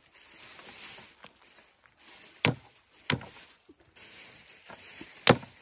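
Three sharp chopping blows, spaced unevenly, the last near the end the loudest.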